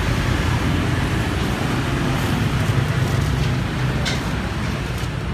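Steady low rumble of road traffic, with a brief faint scrape about four seconds in.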